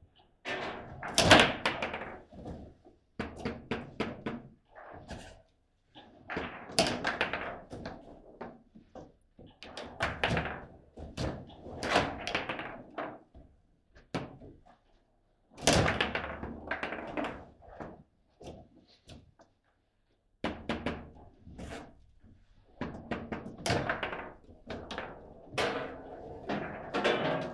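Table football being played: rapid sharp knocks and thuds of the ball against the rod-mounted players, the table walls and the rods, in bursts of a few seconds with brief pauses between them. The loudest hits come about a second in and about halfway through.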